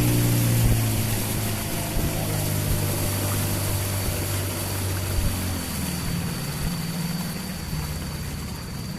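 A boat's motor is running, then throttled back. Its steady note gets gradually quieter and drops in pitch about six seconds in, as the boat slows on arrival.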